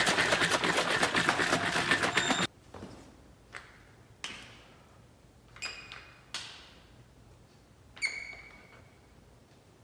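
A plastic drink bottle shaken hard, the liquid sloshing and rattling in quick strokes until it stops abruptly after about two and a half seconds. Then come a few separate light metallic clinks with a short ring, from iron dumbbells during incline hammer curls.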